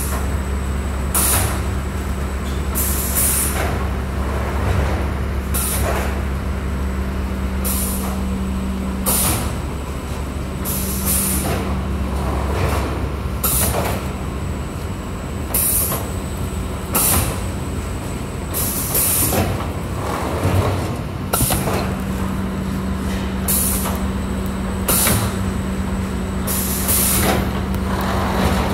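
M&R Stryker automatic screen printing press running: short hissing bursts of air, roughly every one to two seconds, over a steady low machine hum.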